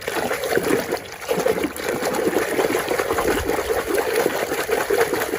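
Water splashing and trickling continuously as a muddy toy truck is washed clean by hand.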